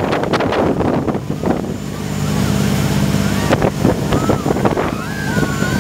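Speedboat engine running steadily under load while towing, with wind buffeting the microphone and wake spray; the wind noise is heaviest in the first two seconds, after which the engine hum is clearer. Near the end, people's voices call out over it.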